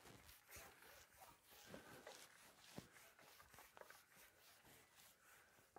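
Near silence, with faint clicks and rustles of fishing tackle being handled; the clearest is a single short tick about three seconds in.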